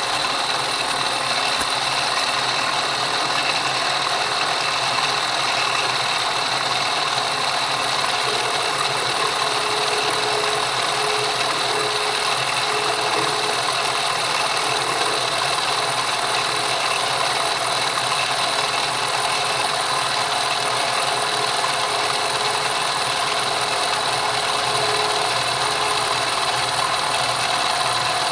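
Milling machine running steadily at about 1200 RPM with a fly cutter in the spindle, a steady high whine over the motor and drive noise.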